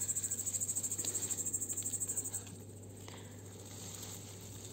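A cricket trilling in rapid, even pulses, high-pitched; the trill stops about halfway through.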